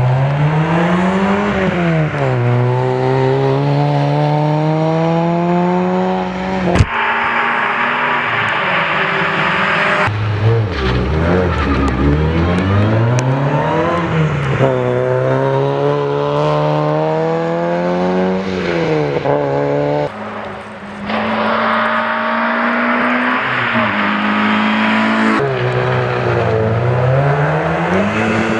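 Rally car engines revving hard on a stage: the pitch climbs and drops again and again through gear changes and corners, with stretches of tyre and exhaust noise. There is a single sharp crack about seven seconds in.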